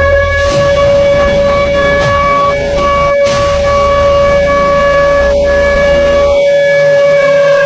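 Civil defense warning siren holding one long, steady wail over a low rumble, starting to drop in pitch at the very end.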